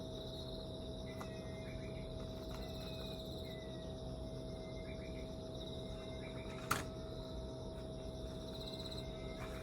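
Steady background hum with a faint, high pulsing trill and a few faint short chirps. A single sharp click comes about two-thirds of the way through.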